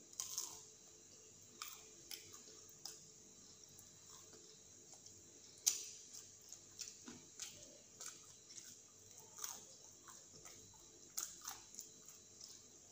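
A person chewing a fried chicken snack with the mouth close to the microphone: faint wet chewing and scattered small mouth clicks, with one sharper click near the middle.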